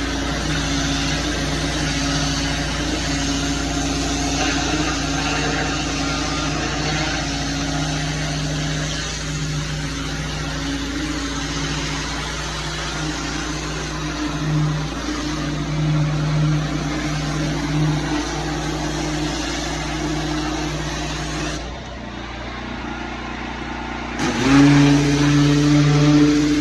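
Gas-engine pressure washer running under a steady hiss of spray. Near the end the spray cuts out for about two seconds, then returns louder as the engine pitch rises.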